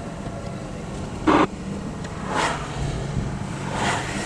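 Steady low hum of a parked vehicle, with one short loud burst about a second in and two broader rushes later.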